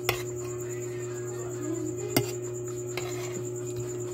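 Metal spoon clinking against a ceramic soup plate, a few sharp clicks: one just after the start, the loudest about two seconds in, and a lighter one a second later, over a steady background hum.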